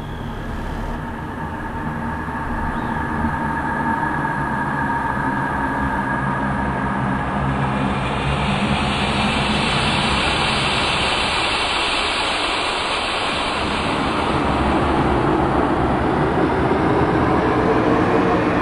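Triumph Daytona 675's three-cylinder engine running under way, heard from the onboard microphone, with a rushing noise of wind building and growing louder through the second half.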